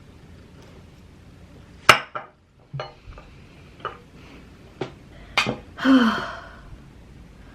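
A utensil clinks against a dish about five times, spaced roughly a second apart, while someone eats. Near the end comes a brief breathy sound from the eater, falling slightly in pitch.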